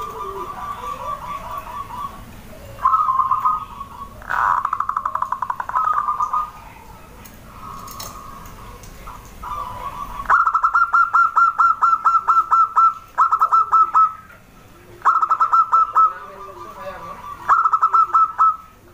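Zebra doves (perkutut) calling: rapid trilling coos in repeated phrases. The first half holds softer, overlapping trills. From about ten seconds in come louder, separate trills, each a second or two long with short breaks between them.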